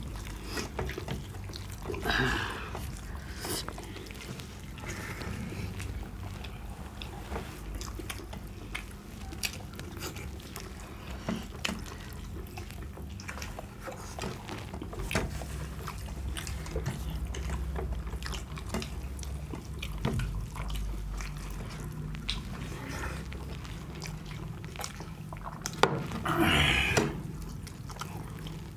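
Wet eating sounds of chicken curry and rice: many small sticky clicks and smacks of mouths and food throughout, with two brief louder bursts, one about two seconds in and one near the end.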